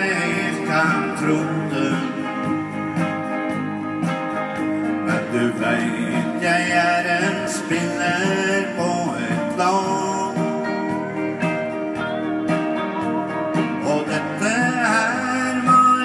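Live country-style song amplified through a PA speaker: guitar over a steady beat, with a man's singing voice in places.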